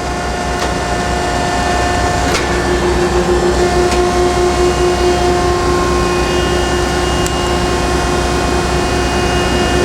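1969 Landis 1R universal cylindrical grinder running, its hydraulic system and 12-inch grinding wheel giving a steady hum with a whine. About two seconds in there is a click and the whine shifts to a lower, stronger tone.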